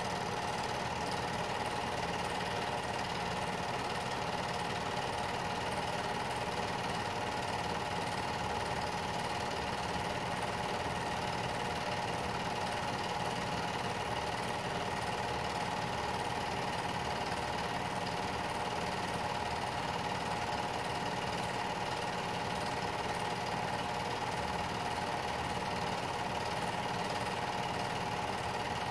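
Film projector running: a steady mechanical whirr and fine rapid clatter of the motor and film transport, unchanging throughout.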